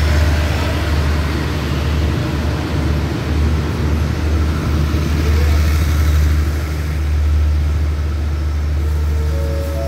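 Passenger train coaches rolling past along the platform, with a steady low diesel engine rumble under the running noise.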